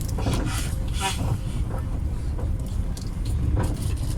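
Steady low rumble inside the passenger saloon of a Class 745 electric multiple unit running on the line, with a few brief faint knocks and rustles on top.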